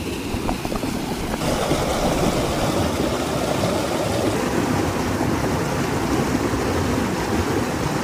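Small mountain spring water running and splashing over rock close by, a steady rush that gets a little louder about a second and a half in.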